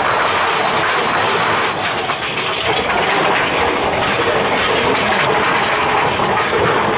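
Big Thunder Mountain Railroad mine-train roller coaster running along its track, heard from inside a car: a loud, steady clatter and rumble of the cars on the rails.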